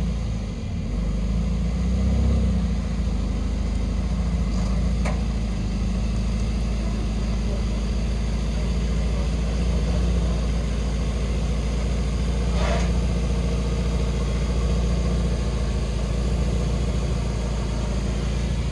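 Mercedes-AMG GT Black Series' twin-turbo flat-plane-crank V8 idling steadily through its exhaust, swelling briefly about two seconds in.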